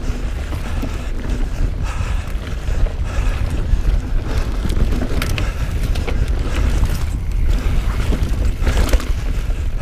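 Mountain bike ridden fast along a dirt trail: heavy wind buffeting on the microphone over the hiss of tyres on dirt, with the bike rattling and a few sharp knocks as it runs over bumps.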